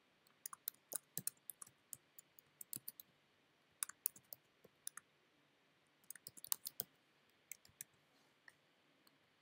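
Computer keyboard typing in several short runs of keystrokes with pauses between them, faint.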